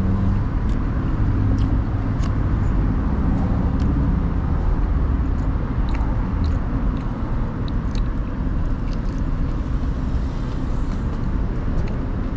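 Steady low rumble of wind on the microphone mixed with road traffic, with scattered light clicks and crunches as a taco is bitten and chewed.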